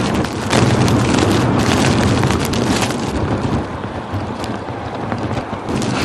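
Blizzard wind blowing hard across the microphone, gusting and buffeting with a low rumble.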